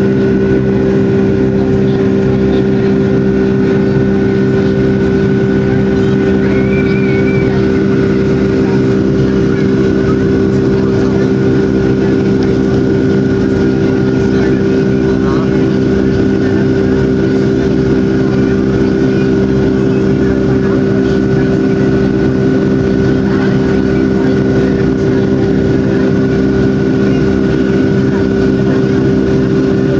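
Airliner jet engines and airflow heard from inside the cabin during the climb after take-off: a steady, loud drone with several held tones over an even rush.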